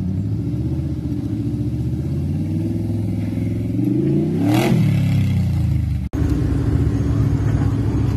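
Motorcycle-engined mini modified pulling tractor running, its engine pitch sweeping up and back down about four and a half seconds in. After an abrupt cut, another mini pulling tractor's engine runs steadily.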